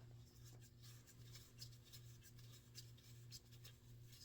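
Near silence with faint scratchy clicks and rubbing as a motorcycle oil filler cap is unscrewed, over a low pulsing hum.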